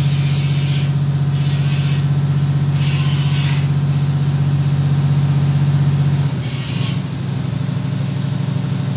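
Truck engine idling with a steady low hum that changes character about six seconds in. Over it come four short hissing bursts.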